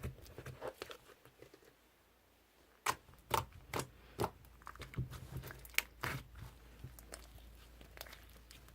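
Slime being squeezed and poked by hand, giving irregular crackling and crunchy clicks, with a short quiet pause about two seconds in before the crackling picks up again.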